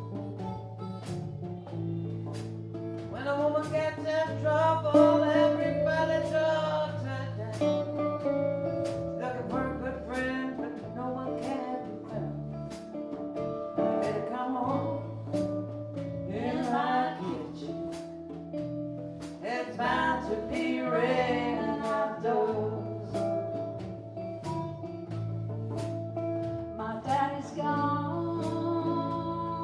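Live blues band playing a slow song: a voice singing over guitars, electric bass and drums, with the drums keeping a steady beat of about one stroke a second.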